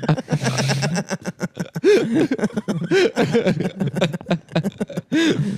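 Men laughing and chuckling in short, broken bursts, with voices rising and falling in pitch.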